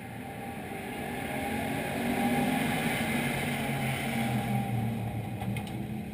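Dirt-track race car engines running nearby: a low engine drone that swells about two seconds in and eases off near the end.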